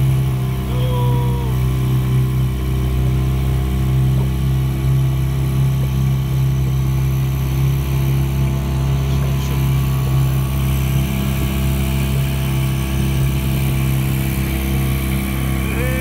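Small outboard motor running steadily at cruising speed, its note holding one even pitch.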